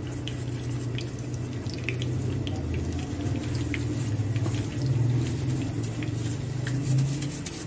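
Chapli kabab patty frying in hot oil on a tawa: a steady sizzle with many small scattered pops and crackles of spattering oil, over a low steady hum.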